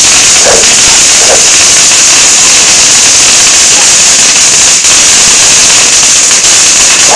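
Dense, unbroken crackle of many firecrackers going off at once, loud enough to overload the microphone.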